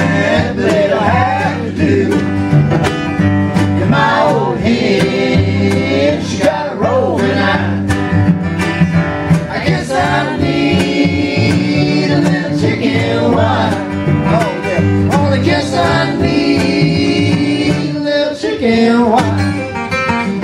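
Live acoustic string band playing a country song: strummed acoustic guitar, fiddle, mandolin and cello, with several voices singing together.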